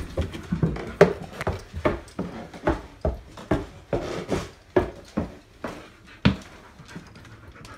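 A husky-type dog panting fast and hard close to the microphone, about two and a half breaths a second, easing off near the end.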